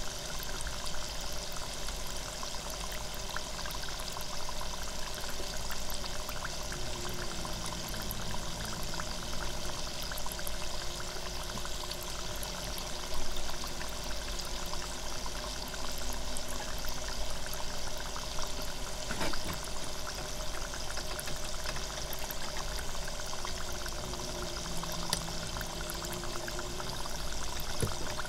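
Hot oil in an electric deep fryer sizzling and bubbling steadily around a loempia (spring roll) frying in the basket, with fine crackles throughout and one louder crackle about 13 seconds in.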